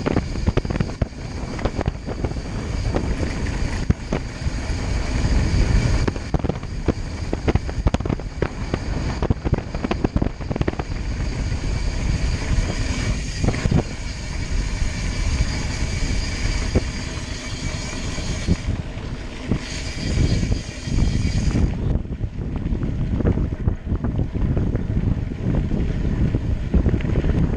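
Wind buffeting the microphone over the steady running noise of a moving vehicle, rising and falling in gusts.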